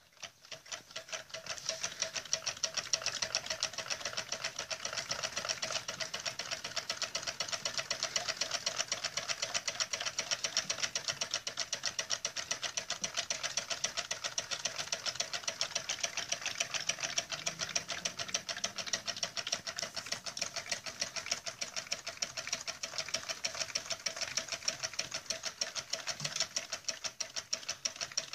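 Homemade Stirling engine driving a small syringe water pump, running with a fast, even mechanical clatter. It starts up and gathers speed over the first couple of seconds, then runs steadily.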